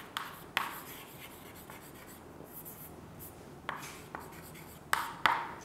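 Chalk writing on a blackboard: faint scratching broken by several sharp taps as strokes begin, the loudest taps near the end.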